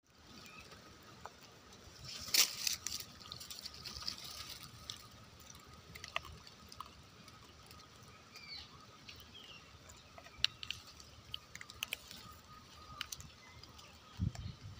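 Quiet background with scattered small clicks and taps, a sharper cluster of clicks a couple of seconds in, and a few low bumps near the end.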